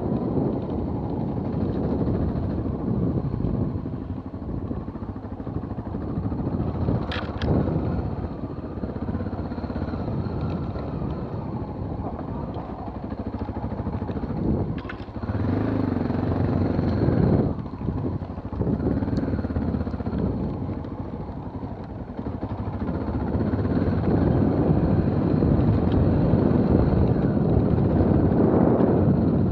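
Motorcycle engine running while riding over a dirt track, mixed with rumble from the ride, with a couple of brief clicks about seven and fifteen seconds in. It grows louder over the last several seconds.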